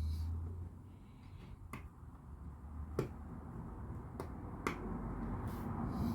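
Four sharp plastic clicks spread over a few seconds as LEGO pieces are handled and pressed together.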